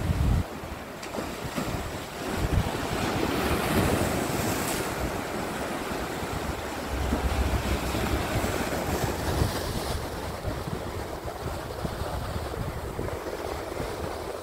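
Sea waves washing and breaking against shoreline rocks, a steady rushing surf that swells a few seconds in, with wind rumbling on the microphone now and then.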